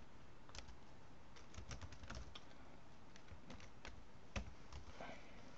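Faint, irregular keystrokes on a computer keyboard, a scattering of light taps with one slightly louder key press about four seconds in.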